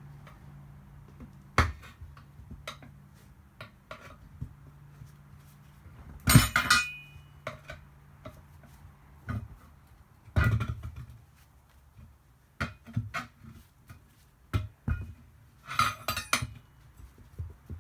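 Metal tire irons clanking and clinking against a wheel rim as a tire bead is pried off, in irregular knocks. The loudest comes about six seconds in, with a brief ringing.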